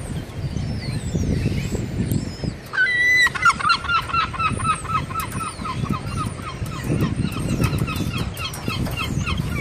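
Gulls calling: a rising call about three seconds in, then a long run of quick repeated notes, several a second, lasting about six seconds, as in a gull's long call. Fainter high falling cries come earlier, with a low rumble underneath.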